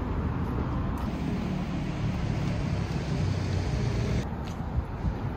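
City street traffic noise: a steady rush of cars driving past. It turns duller about four seconds in.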